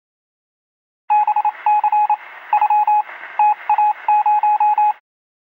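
A single-pitch beep keyed on and off in uneven short and long pulses, like Morse code, over a band of static hiss. It starts about a second in and cuts off suddenly near the end.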